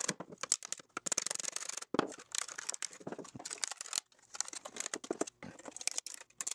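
Metal hand tools clinking and rattling on a wooden bench as they are picked up and set down, then pliers snapping and scraping at the edge of a 3D-printed plastic cover, clearing away leftover print material. The sound is a busy run of sharp clicks and scratches.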